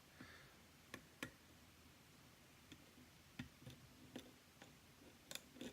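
Faint, irregular clicks of a lock pick and tension wrench working the pins inside a lock cylinder, about nine small ticks spread unevenly over a few seconds.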